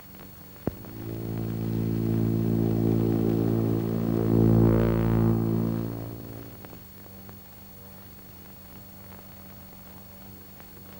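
Propeller biplane's engine droning as it flies past overhead, swelling to its loudest about halfway through and then fading away. A single sharp click comes just before the engine sound rises.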